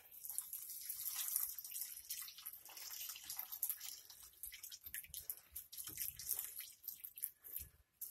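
Faint water trickling and dripping, with many small irregular ticks, from the booster pump's pipe connection as it is taken apart.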